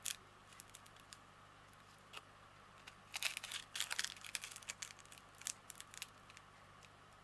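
Small plastic bags of diamond-painting drills being handled and shuffled: scattered crinkles and light clicks, busiest about three to four seconds in and again near six seconds.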